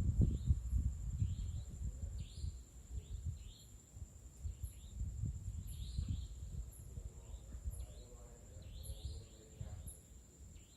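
Birds chirping in short, repeated calls about every second, over a low rumble on the microphone that is loudest in the first two seconds, with a steady high-pitched whine underneath.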